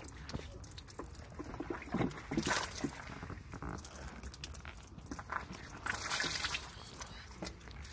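Water wrung from a washcloth streaming down a bather's legs and splashing onto wet mud, with the loudest splashes about two and a half seconds in and again around six seconds in, and light trickling between them.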